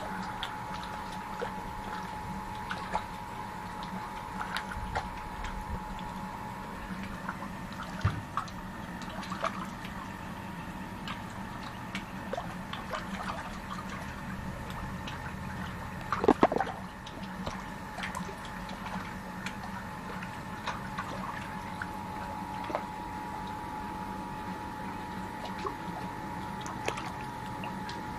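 Small splashes and drips at the surface of a fish pond where climbing perch are rising, scattered through a steady hum, with the loudest cluster of splashes about sixteen seconds in.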